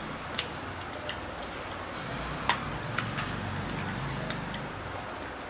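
Wooden chopsticks clicking against a bowl about six times at uneven intervals, the sharpest about halfway through. Under them is a steady hiss with soft chewing.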